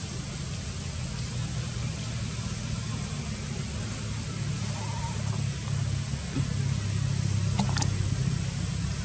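Low steady engine hum that grows a little louder in the second half, with a brief faint squeak about five seconds in and a click near the end.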